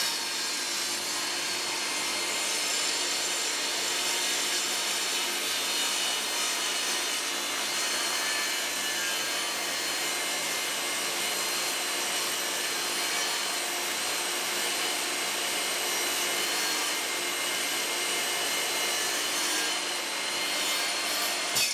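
Table saw running with a crosscut blade, cutting the kerf into the base of a crosscut sled as the sled is pushed slowly through. It is a steady sawing noise with a whine, and a brief click comes just before the end.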